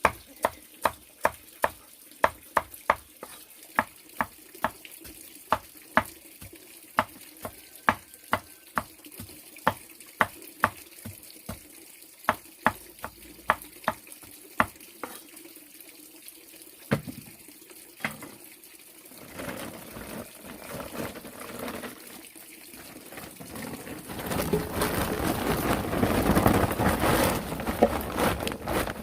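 Sharp knocks at a steady pace of about two a second, then a few slower knocks, giving way to a splashing water noise that grows louder near the end.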